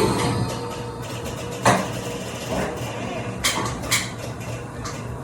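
Kitchen handling sounds: a few sharp knocks and clinks, the loudest about a second and a half in, over a steady low hum from a running appliance.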